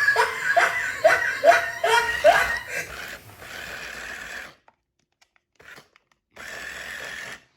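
A person laughing in short rhythmic bursts. Then a small electric RC car motor whirs steadily, stops for a couple of seconds and whirs again, as the car sits stuck and fails to climb out.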